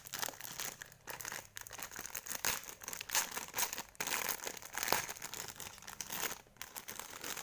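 Toy packaging being unwrapped by hand: irregular crinkling, rustling and some tearing of the wrapping.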